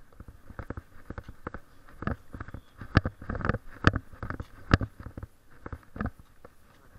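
Walking noise: rustling and irregular knocks from footsteps and the handled camera and leash while a dog is walked on a leash along a concrete sidewalk. Three sharper clicks stand out, a little under a second apart, near the middle.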